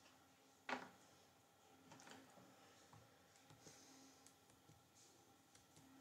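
Near-silent room tone with one sharp click a little under a second in and a few fainter clicks scattered after it.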